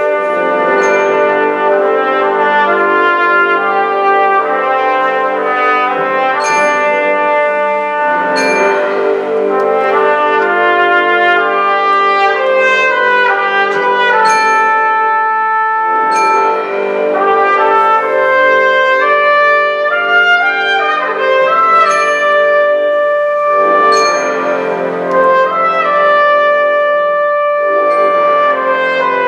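Concert wind band playing a slow passage of held chords, with the brass leading, and occasional percussion strikes over the sustained notes.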